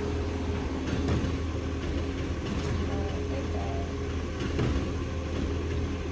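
Garbage truck's engine running close by with a steady low rumble and hum, while it collects the bin, with a few faint knocks.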